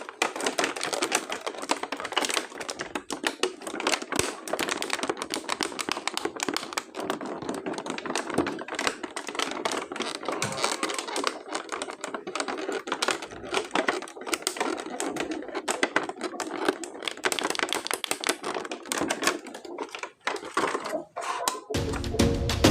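Rapid, dense clicking and clattering of hard plastic being handled, such as toy figures and their packaging. Music starts just before the end.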